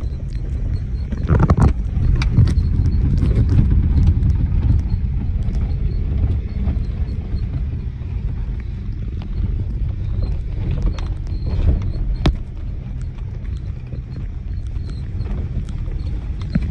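Heard from inside the car's cabin, a car driving on a rough rural road: a steady low rumble of engine and tyres with scattered knocks and rattles over the bumps, a heavier jolt about a second and a half in.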